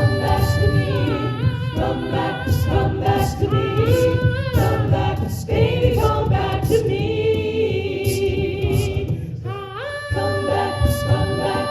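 A cappella group singing in close harmony, with a low bass voice under the held chords and vocal percussion keeping a steady beat.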